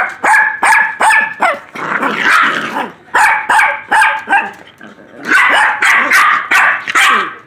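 Four-month-old silky terrier puppies barking, rapid high-pitched yaps in quick runs of several with short pauses between.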